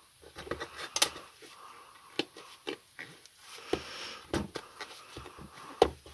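Plastic tire levers and hands working a tyre bead onto a stroller wheel rim: a series of irregular clicks and knocks with some scraping, the loudest clicks about a second in and near the end.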